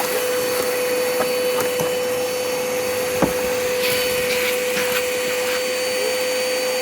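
Vacuum cleaner running steadily with a constant motor whine, with small ticks and crackles as debris is sucked up. A sharper click comes about three seconds in.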